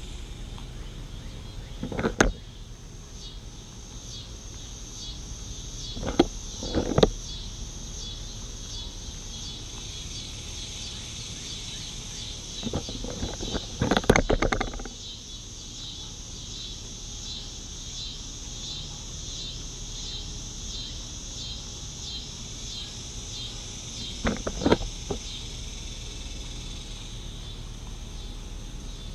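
Cottontail rabbit biting and crunching a carrot close to the microphone, in short bouts: about two seconds in, twice around six to seven seconds, a longer bout near the middle, and again near the end. Under it runs a steady pulsing insect chorus.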